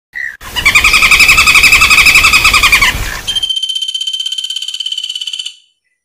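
Flameback woodpeckers giving rapid rattling calls, the fight-and-scream calls of a lure recording. A harsh, fast rattle of about ten notes a second over some background noise gives way about three seconds in to a higher, cleaner trill that cuts off suddenly near the end.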